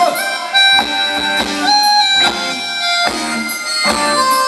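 Live luk thung band music for ramwong dancing: a lead instrument holds long melody notes, sliding between some of them, over a steady beat.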